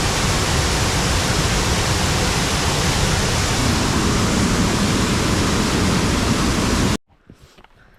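Waterfall rushing close by: a loud, steady wash of falling water that cuts off suddenly near the end.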